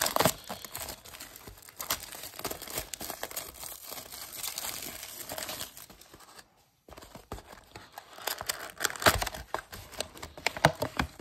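Plastic shrink-wrap crinkling and tearing as it is pulled off a cardboard trading-card box. After a brief pause, the cardboard box is opened, with louder, sharper crackles near the end.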